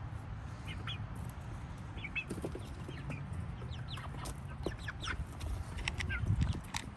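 Several chickens clucking with short calls, busier in the second half, over a steady low rumble.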